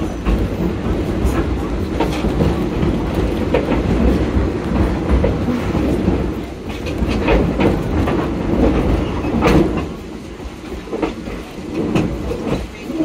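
Steam-hauled passenger train running over the track behind the Edison steam locomotive: a steady low rumble of the wheels on the rails, with irregular clicks and clacks over the rail joints.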